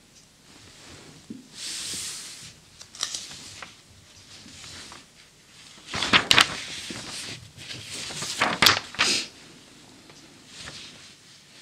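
Pages of a 1940 paper magazine being handled, with a soft brushing of paper about two seconds in and louder crackly rustles around six seconds and again around eight and a half to nine seconds in.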